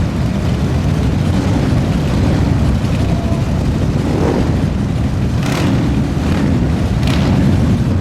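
A loud, steady low rumble like a vehicle engine running, with a few brief hisses over it.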